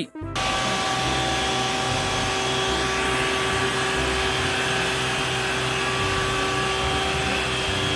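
Water cannon on an Isuzu water tanker truck spraying a powerful jet of water: a steady, loud rush of water over the constant hum of the truck's engine and pump. It starts abruptly.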